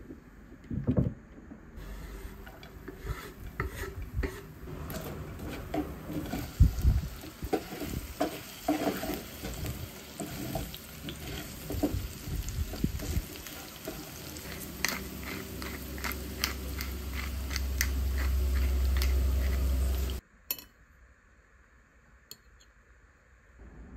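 Halved small potatoes and minced garlic sizzling in a frying pan, with a utensil clicking and scraping against the pan as they are stirred. The frying sound cuts off abruptly near the end.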